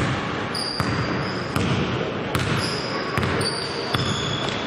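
Basketball dribbled on an indoor court, a bounce about every 0.8 seconds, with short high squeaks of shoes on the floor and voices echoing in a sports hall.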